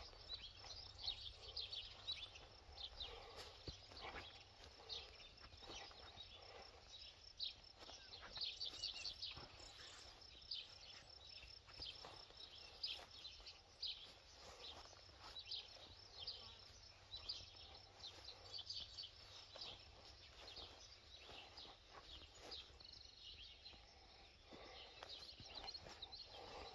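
Faint outdoor ambience of small birds chirping, many short high calls with some quick trills, over a steady low rumble.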